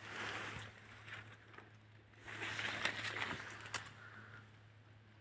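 Cotton plant leaves and stems rustling as they brush past, in two spells with a couple of sharp clicks in the middle of the second.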